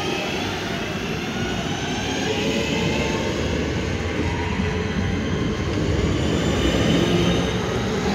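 Two coupled Class 323 electric multiple units pulling out and gathering speed past the platform: a steady rumble of wheels on rail with a faint rising whine from the traction motors.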